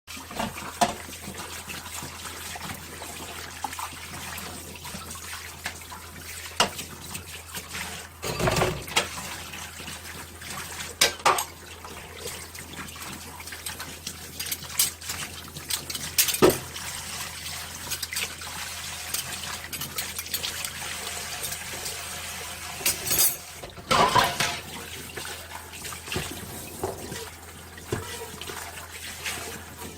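Dishes being washed at a kitchen sink: tap water runs steadily while dishes and utensils clink and knock against each other. Louder clatters come about eight seconds in and again around twenty-four seconds.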